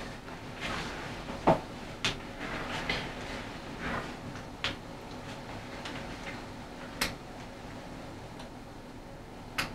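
Room tone with a steady faint hum and about seven short clicks at uneven intervals, the strongest about a second and a half in.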